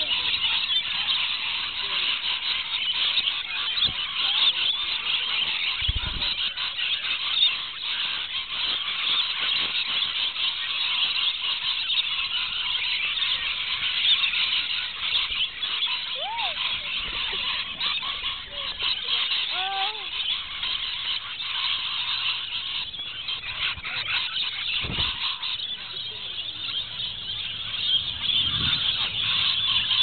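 A large flock of rainbow lorikeets screeching and chattering all at once, a steady dense wall of shrill calls.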